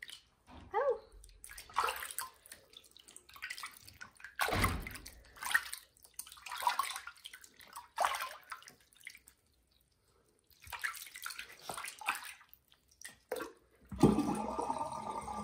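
Water sloshing and splashing in a sink as a small kitten is held and washed in it, in irregular bursts with a short quiet pause about two-thirds of the way through. A louder, steadier sound begins near the end.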